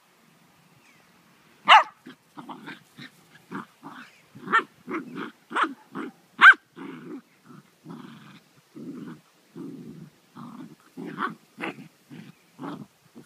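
A poodle and a Dogo Argentino puppy play-fighting: one sharp bark about two seconds in, then a long run of short growls and yelps, two or three a second.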